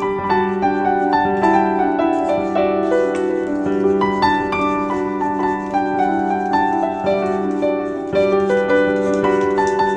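Instrumental background music: a quick, continuous run of plucked notes over steady held low notes.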